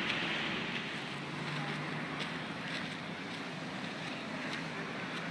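Steady background noise of city road traffic, with wind on the microphone.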